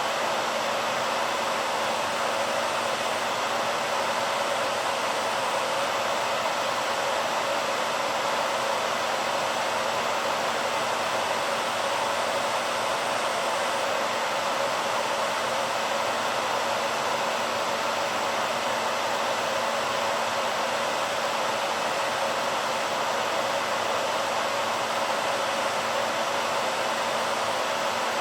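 BaByliss hairdryer running steadily: an even rush of blown air and motor noise that stays the same throughout, with a faint steady hum beneath it.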